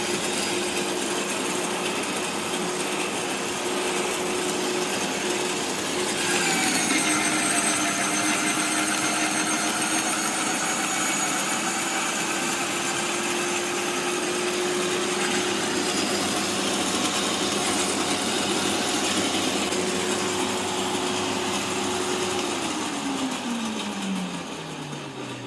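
Parkside PWH 2800 B2 electric roller branch shredder running while crushing fresh branches, a steady motor whine. About six seconds in its pitch drops and it gets louder, and near the end it winds down with a falling whine.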